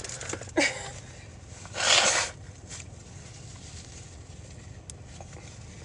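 One short, forceful breath through a stuffy nose, about two seconds in, during a bout of sneezing and allergies.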